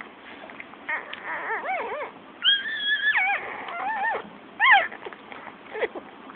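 Newborn shih-tzu puppies crying: a run of short, high squeals that rise and fall in pitch, with one longer held cry about two and a half seconds in and the loudest squeal near the middle.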